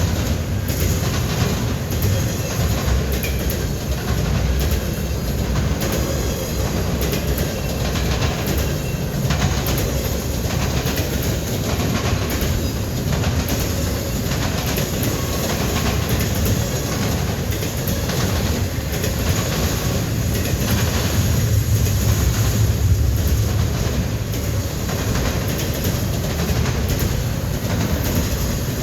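Norfolk Southern intermodal freight train rolling past close by: a steady low rumble with a stream of wheel clicks and clacks from the passing cars, the rumble swelling about two-thirds of the way through.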